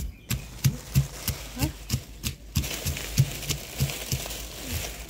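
Stone pestle pounding fried peanuts in a stone mortar: a steady run of short knocking thuds, about three a second, with a gritty crunch of crushed peanuts under them.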